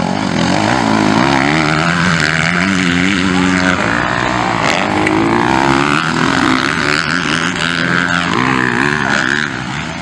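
Motocross bikes' engines revving hard as the bikes race past, the pitch rising and falling again and again with the throttle.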